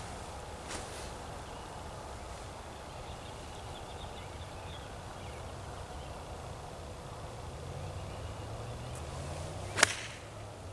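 A 9-iron striking a golf ball off the fairway turf: one sharp crack near the end, over a low steady background. A fainter tick comes about a second in.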